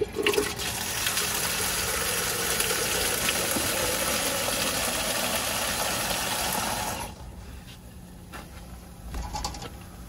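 Water rushing under pressure out through a water source heat pump's open line strainer into a small plastic bucket during a back flush, clearing muck from the clogged strainer. The rush stops abruptly about seven seconds in, leaving faint handling sounds.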